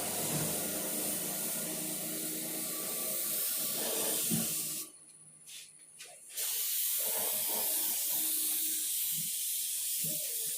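Compressed-air spray gun hissing as it sprays paint onto a motorcycle fuel tank. The spray stops about five seconds in for a second and a half, then starts again.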